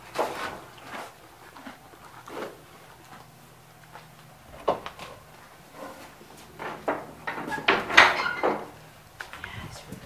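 Scattered knocks and clatters, a few spread out and then a quicker run of them near the end, the loudest about eight seconds in, over a faint low steady hum.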